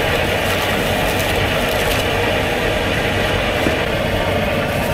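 Steady din of a packed open-air market: many voices and bustle blending into a dense, even hubbub.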